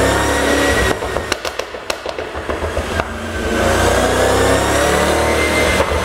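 Mercedes-AMG GT63 S 4Matic's twin-turbo 4.0-litre V8 revved and held high, then let off about a second in. On the overrun the exhaust pops and crackles several times, the effect of a pop-and-crackle tune. It is revved and held again from about three seconds until near the end.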